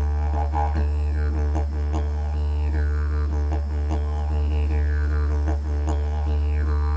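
Background music: a didgeridoo droning steadily on one low note, with rhythmic falling overtone sweeps about once a second.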